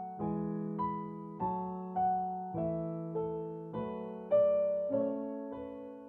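Slow solo piano music: single notes and chords struck about once or twice a second, each ringing and fading before the next.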